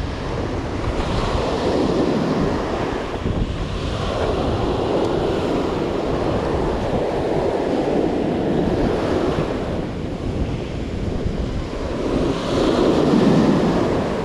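Surf washing up the beach in repeated surges of foaming water, the loudest wash near the end, with wind buffeting the microphone.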